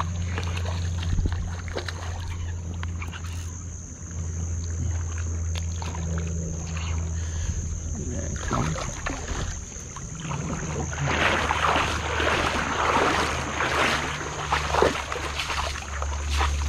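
Hooked tailor splashing and thrashing in the shallows as it is drawn to the rocky shore, loudest from about eleven to fifteen seconds in, over a steady low rumble.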